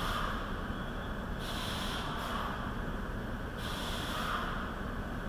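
Rhythmic bursts of hissing, about one every two seconds and each lasting around a second, over a steady low rumble.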